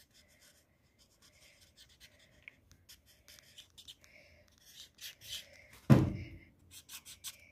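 Marker pen scratching across sketchbook paper in short, quick strokes as details are inked in. There is a single loud thump about six seconds in.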